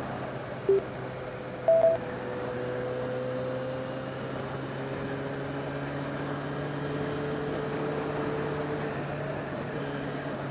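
Short electronic beeps from a Sena 10C Pro Bluetooth helmet headset: a single low beep, then a higher double beep about a second later, the kind of button feedback given while working its controls. Under them runs the steady hum of the Yamaha XJ6's inline-four engine and wind, heard through the helmet microphone, its pitch shifting slowly.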